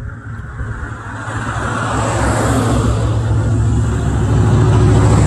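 A motor vehicle's engine approaching, its low hum growing steadily louder.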